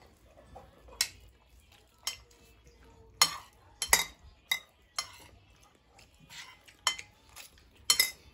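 Forks and spoons clinking against plates as people eat: about ten irregular, sharp clinks.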